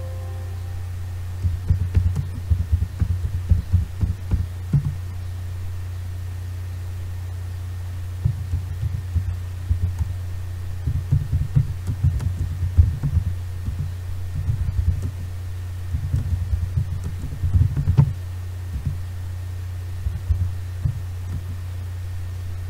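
Keyboard typing heard as bursts of quick, muffled low thumps, in three spells, over a steady low electrical hum.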